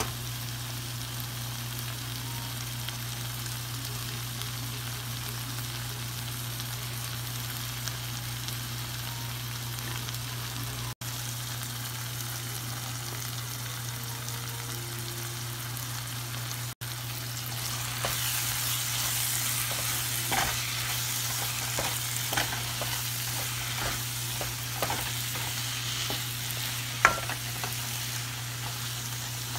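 Onions and diced potatoes sizzling in oil in a nonstick pan, over a steady low hum. Past the middle the sizzle grows louder as a plastic spoon stirs the spices in, scraping and tapping against the pan, with one sharp knock near the end.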